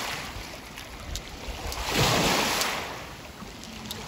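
Small Lake Superior waves washing onto a pebble shore, with wind rumbling on the microphone; one louder wash swells up about two seconds in.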